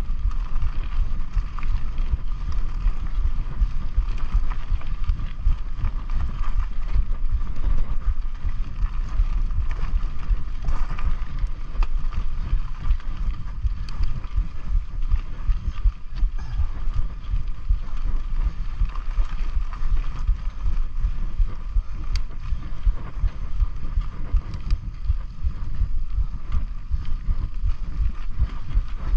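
Mountain bike rolling along a dirt singletrack, with tyre noise, scattered small rattles and clicks from the bike, and a steady thin hum. Wind buffets the microphone throughout.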